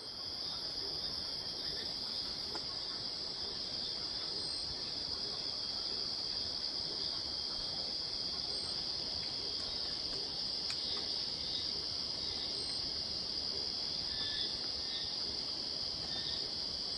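Night insects singing: one steady, high-pitched unbroken trill, with a faint higher chirp about every four seconds.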